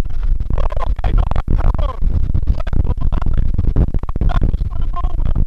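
A man letting out short wordless yells over loud, rumbling rushing noise with many crackles.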